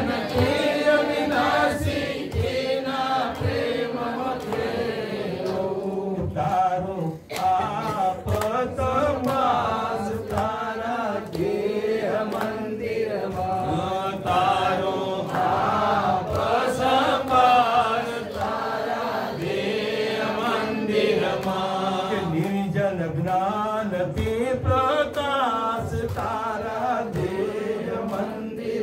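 Men's voices chanting a devotional hymn together, a steady sung line that carries on without a break.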